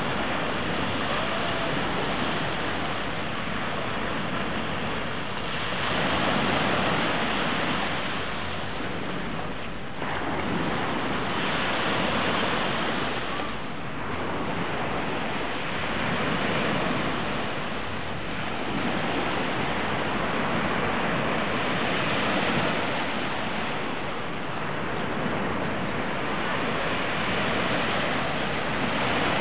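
Small surf waves breaking and washing up on a sandy beach, the wash surging louder and fading about every five seconds.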